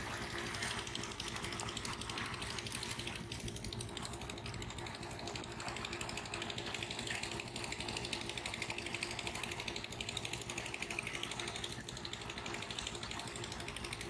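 Two-wheel power tiller's engine running steadily with a fast mechanical clatter as it works through flooded paddy mud.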